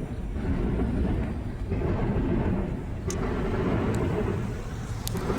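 CPKC double-stack intermodal freight train rolling past, a steady low rumble of wheels on rail. A few faint high ticks come through about three, four and five seconds in.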